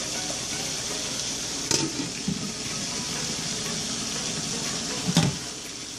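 Yogurt chicken curry simmering in a covered pot, with a steady bubbling hiss. Two sharp clicks come through, one a little under two seconds in and one near the end.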